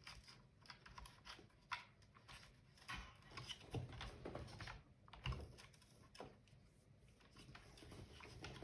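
Scattered light clicks and taps at an irregular pace from the plastic parts of an opened-up robot vacuum being handled.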